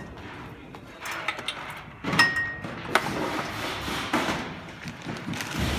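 Electrical cables and plug connectors being handled and bundled against a chair's frame: irregular rustling with a few sharp knocks and clicks, the loudest about two seconds in.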